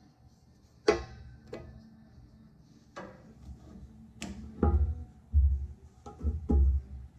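Sharp metal clicks and clinks of a steel disc, steel rod and welding magnet being handled and set against each other, four in all, the first the loudest. In the second half come several low, dull thumps of handling on the workbench.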